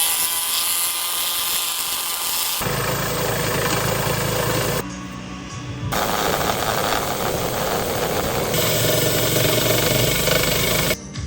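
Power tools shaping wood: a high hissing grind at first, then a motor's steady hum under rough cutting noise. The sound changes abruptly about two and a half seconds in, drops briefly around five seconds in, and resumes.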